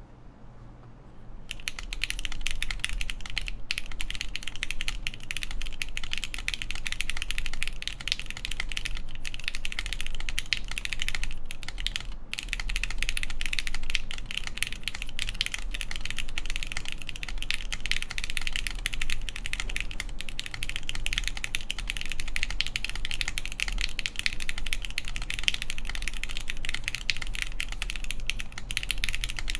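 Steady, fast typing on a Mode Tempo mechanical keyboard with lubed Gateron X switches in an aluminum plate, no foam, fitted with Hammer CRP keycaps: a dense run of keystroke clacks that starts about a second and a half in, with only a few short pauses.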